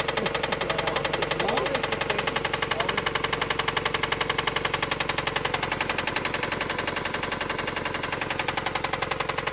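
Mazda Miata (NB) four-cylinder engine running steadily with a rapid, even knock in time with the engine, a knock the owner suspects could be rod knock, piston slap or a bent rod.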